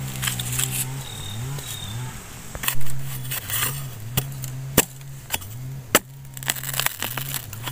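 Long-handled steel digging blade chopping into soil and bamboo roots around a bamboo shoot: a run of sharp strikes at uneven intervals, starting a couple of seconds in. A low droning tone wavers underneath.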